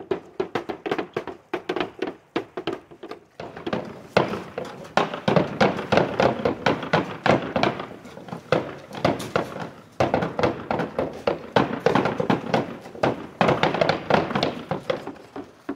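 Roofers' hand tools striking a bare wooden roof deck: rapid, overlapping knocks, several a second, getting louder and denser about four seconds in.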